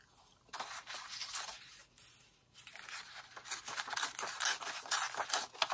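A sheet of printed collage paper being torn slowly by hand: a dry crackling rip that begins about two and a half seconds in and keeps going, after some light rustling as the paper is handled.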